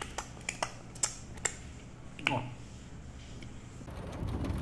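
A handful of sharp clicks and smacks from eating, most of them in the first second and a half. Near the end a steady low rumble of a moving vehicle takes over.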